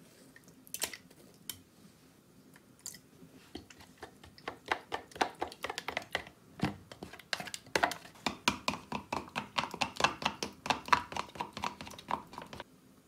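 Wooden chopsticks beating eggs in a plastic measuring cup: a few scattered knocks at first, then quick, steady clicking and tapping against the plastic, about four or five strokes a second, which stops shortly before the end.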